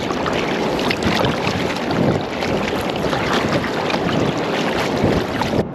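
Water splashing and rushing around a kayak as it is paddled, with wind buffeting the microphone. The sound cuts off suddenly just before the end.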